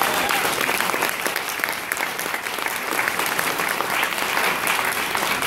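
Audience applauding, a dense crowd of clapping hands, loud throughout and tailing off at the end.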